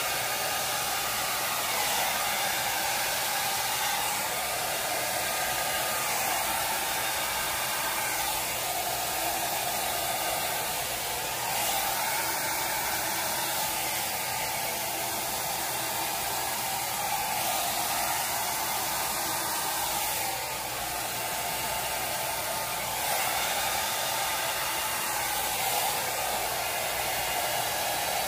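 Handheld hair dryer running steadily, blowing air onto a wet painted canvas: a constant rushing hiss, dipping slightly for a moment about twenty seconds in.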